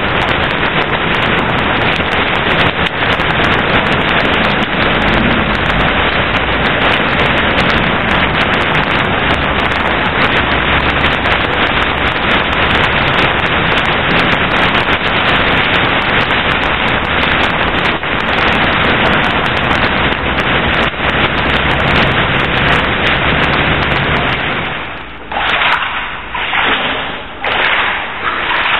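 Loud, steady rushing of muddy floodwater running across the street pavement; near the end it falls away and becomes patchy.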